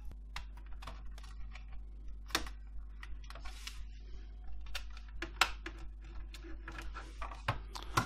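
Irregular small clicks and taps of a sheet-metal hard-drive caddy being handled and fitted into the metal and plastic chassis of an all-in-one PC, with a couple of sharper clicks about two and a half and five and a half seconds in.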